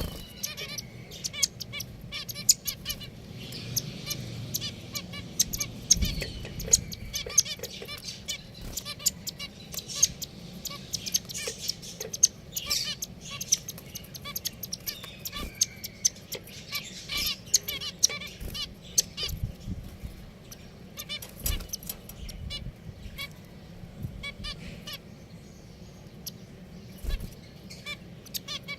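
A group of pet finches chirping and calling, many short calls overlapping with hardly a pause.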